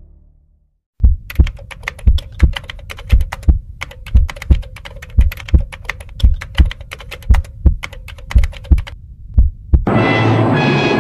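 Heartbeat sound effect, a double thump about once a second, under a fast patter of keyboard typing clicks. Music with brass and timpani comes in near the end.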